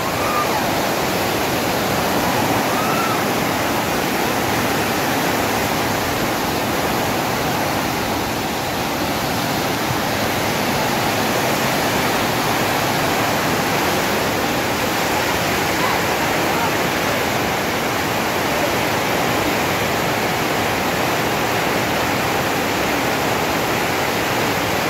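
Swollen flash-flood torrent of muddy water rushing, with heavy rain falling; a loud, steady rush with no breaks.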